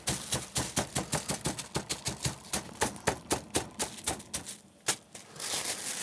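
A heavy knife blade dropped lightly and rapidly onto a beef fillet in a plastic bag on a wooden board, several taps a second, tenderising and flattening the meat. The tapping stops a little over four seconds in, and the plastic bag crinkles near the end.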